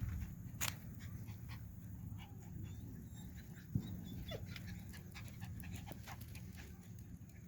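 A dog panting, with scattered short clicks and ticks; a sharper click comes about half a second in and another a little before four seconds.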